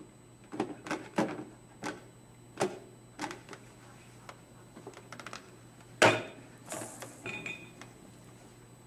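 Sharp knocks and clatter from a clear plastic box and its lid as puppets handle it: a scattered series of taps, the loudest about six seconds in, over a faint steady hum.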